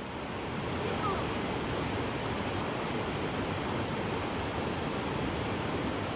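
Steady rushing of a mountain stream's white water.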